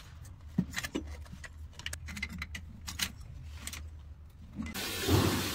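Scattered metal clicks and clinks of a pipe wrench gripping and turning a chrome angle valve and a braided flexible hose's nut on a threaded fitting. Near the end, water starts running with a steady hiss, louder than the clinking.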